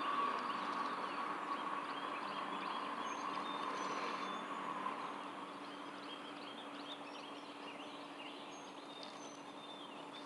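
Outdoor background noise: a steady low hum with faint short high chirps, slowly getting quieter over the first half.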